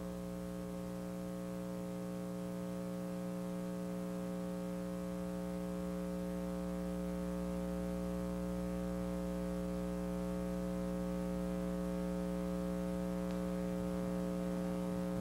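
Steady electrical mains hum with a buzzy stack of overtones, growing slightly louder, with nothing else heard.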